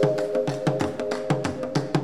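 Music: a held chord of steady tones over a quick rhythm of sharp, woody clicks, about four a second, with soft low thumps.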